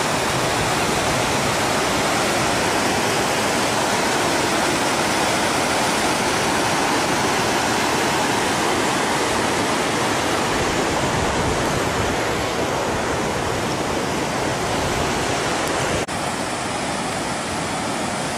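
Water of the Rio On waterfall rushing steadily down granite cascades, with a brief break about sixteen seconds in, after which it is a little quieter.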